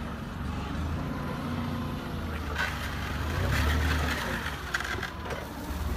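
Engine sound of an RC-converted Bruder Linde H30D forklift: a steady low rumble as the forklift drives. There is a louder, noisier stretch about three to four seconds in.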